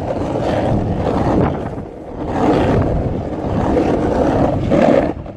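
Wind buffeting the microphone: a loud, uneven low rumble that swells and dips, with a brief drop about two seconds in.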